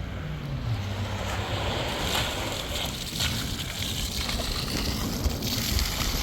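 Wind buffeting the microphone over the wash of sea water, a steady rushing noise that grows a little louder toward the end.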